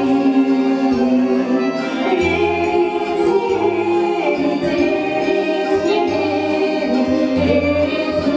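Two women singing a Russian song as a duet into microphones, in long held notes over an instrumental accompaniment with a bass line.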